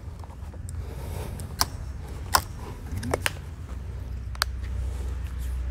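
Handling noise of a scoped air rifle and its bipod as it is lifted from a gun case: a few short sharp clicks and knocks, with a steady low rumble underneath.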